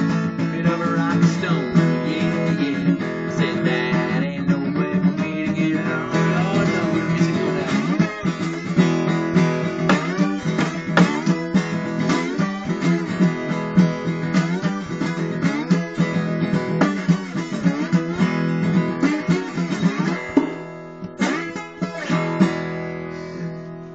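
Acoustic guitar playing a blues, picked and strummed steadily, then thinning out and fading near the end.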